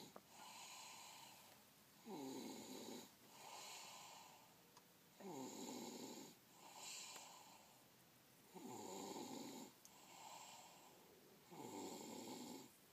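Sleeper snoring in a slow, regular rhythm: four louder snores about three seconds apart, each starting with a falling pitch, with softer breaths between them.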